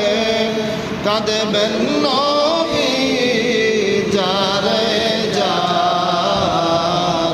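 A man's voice chanting a religious supplication in a melodic, sung style, with long wavering held notes and gliding pitch.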